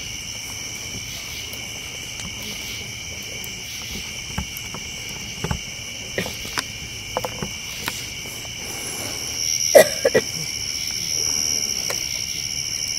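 Steady chorus of night insects chirping at several pitches, with a scattering of sharp pops and crackles, the loudest a close pair about ten seconds in.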